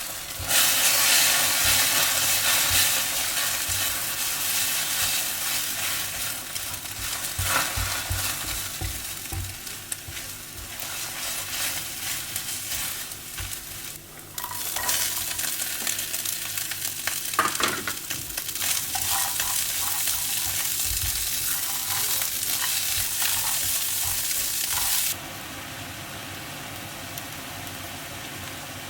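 Food sizzling and frying in a hot pan, with the clinks and scrapes of a utensil stirring it. The sizzle briefly dips about halfway, then comes back louder. Near the end it cuts down suddenly to a quieter, steady hiss.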